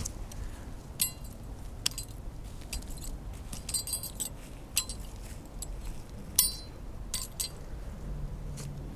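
Small metal rings and pieces being pulled off a fishing magnet and dropped together, clinking and jangling in about a dozen irregular sharp, ringing clicks, the loudest about six seconds in.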